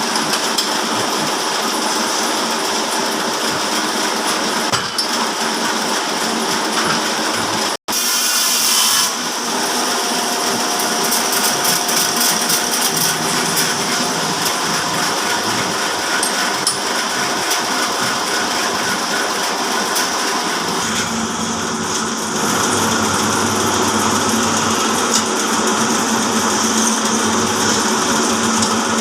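Horizontal sawmill saw running steadily, powered by a 5 HP electric motor. It cuts out briefly just under eight seconds in. A deeper hum joins about twenty-one seconds in.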